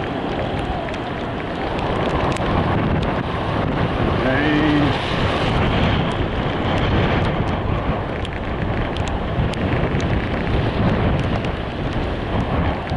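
Steady wind and road noise from a moving vehicle, with wind buffeting the microphone. A brief pitched sound comes about four seconds in.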